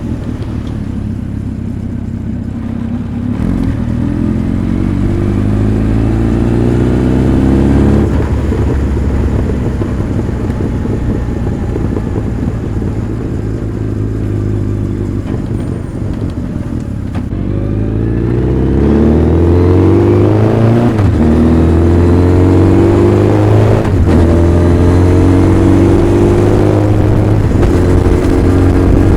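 Honda CB1300 Super Bol d'Or's inline-four engine and exhaust under way, its pitch climbing as it accelerates a few seconds in, holding steady through the middle, then climbing again in the last third with a brief break partway, as on a gear change.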